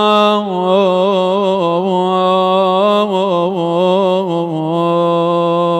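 A man's voice chanting one long, drawn-out note in the ornamented style of an Arabic elegy recitation, wavering in quick trills through the middle and then held steady. No instruments.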